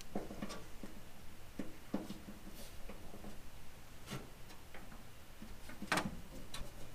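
Scattered light clicks and metal knocks of a hand tubing bender being worked on 3/8-inch aluminum tubing, the loudest knock about six seconds in.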